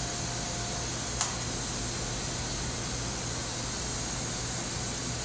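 Steady fan-like hiss and low hum of the equipment in a synchrotron beamline hutch around a Stäubli robot arm sample automounter. A faint steady tone stops about a second in, just before a single sharp click.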